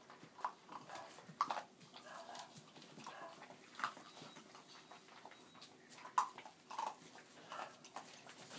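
Chocolate Labrador puppies eating dry kibble from a pile on a hardwood floor: faint, irregular small crunches and clicks scattered throughout.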